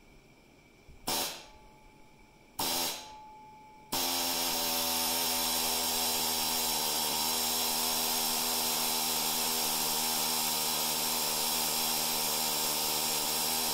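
Small pneumatic air chisel fired in two short bursts, then run steadily for about ten seconds, hammering at a stuck part.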